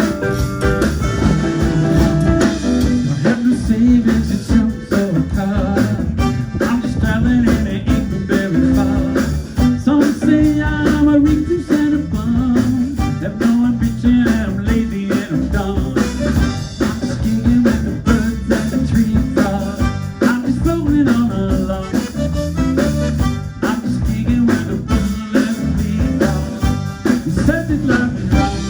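Live band playing upbeat blues-style roots music, with drum kit and guitar and a voice singing along.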